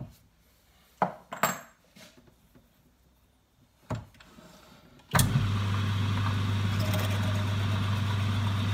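A few light metal knocks and clicks as the drill is set up. About five seconds in, the electric motor of a 1953 Boxford metal lathe switches on and runs with a steady low hum.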